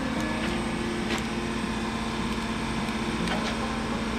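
Steady machinery hum: a constant low drone with a few faint light clicks.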